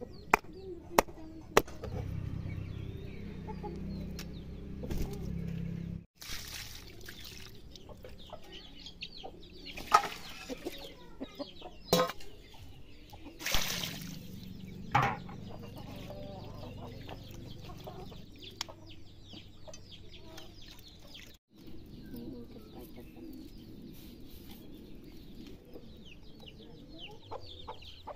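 Chickens clucking in the background, with three sharp knocks in the first two seconds and several short bursts of noise scattered through.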